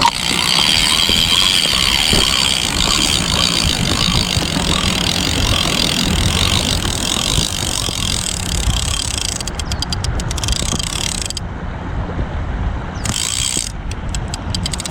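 Fast, steady mechanical ticking from a small geared or ratcheting mechanism, with wind rumbling on the microphone.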